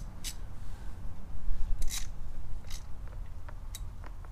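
Socket wrench loosening a 13 mm bolt on a Husqvarna FE350S engine casing: a few sharp metal clicks, spread irregularly, the loudest about two seconds in.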